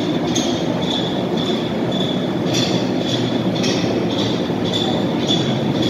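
Platen-type die punching machine running, a steady rumbling mechanical clatter from its drive and moving platen, with a high ringing tone that pulses about twice a second.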